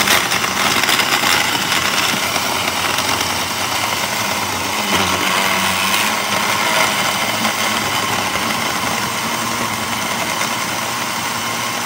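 Countertop blender motor running steadily, blending a milk mixture.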